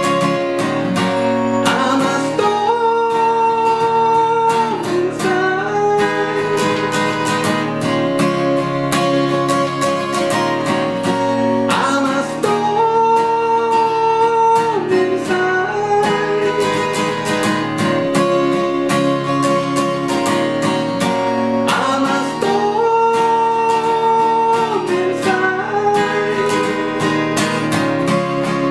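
Acoustic guitar played fingerstyle in a repeating pattern, with a voice singing a melody in phrases that return about every ten seconds.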